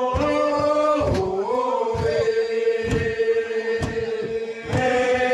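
A group of Manggarai men chanting together in unison, holding a long drawn-out note that dips and settles about a second in, with low thuds about once a second underneath.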